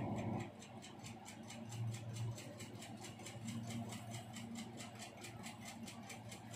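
Rapid, even ticking, several ticks a second, over a low steady hum.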